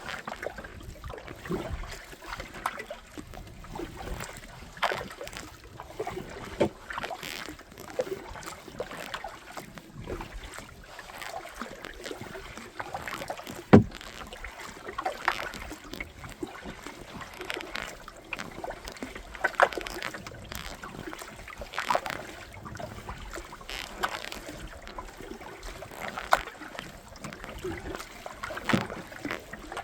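Kayak paddle strokes on a river: the blades dip and splash every second or two, with water running and dripping between strokes. About halfway through there is one sharp knock.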